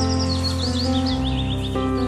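Soft background music with held chords, over which a rapid run of short, high bird chirps steps down in pitch during the first second and a half.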